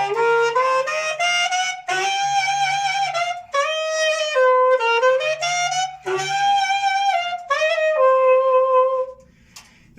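Saxophone playing a pentatonic scale with the growl effect: a raspy, gravelly tone made by gargling in the throat while blowing. The notes climb in steps at first, then run into held and bending notes, and the playing stops about nine seconds in.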